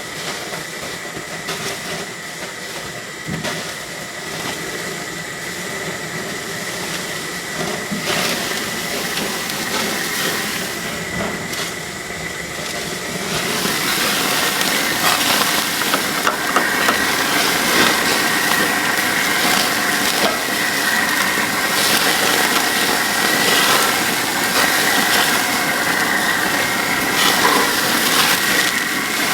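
Pork chop grease sizzling and flaring on a grill, a steady hiss with crackling that grows louder about halfway through.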